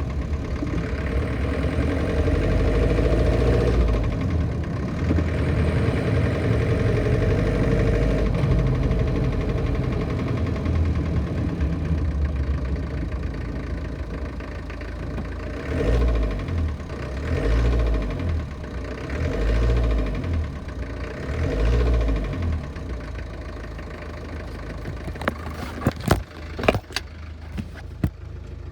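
1968 Land Rover Series IIA engine running with a metallic knock whose cause the owner has not found. Four short blips of the throttle about halfway through, then it settles back to a steady run, with a few sharp clicks near the end.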